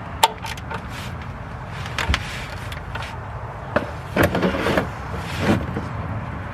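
Scattered metallic clicks and knocks of a socket and wrench working loose the 13 mm oil drain plug on a 3.6 L Pentastar V6's oil pan, with a denser run of clicks about four seconds in, over a steady background noise.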